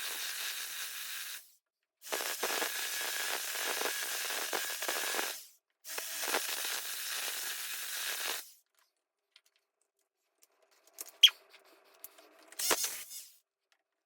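A power tool grinding into brick with a hissing, gritty noise and a faint motor whine, in three bursts of a few seconds each that cut off abruptly. A few sharp clicks and knocks follow near the end.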